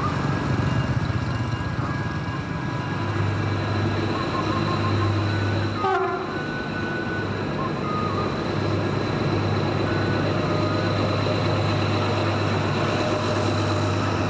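Diesel locomotive and its train passing close by, the engine's low steady drone setting in a few seconds in and holding.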